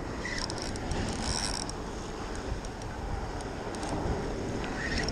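Wind buffeting the microphone of a body-worn camera, with a cluster of small clicks and rubbing from a hand on the camera about a second in.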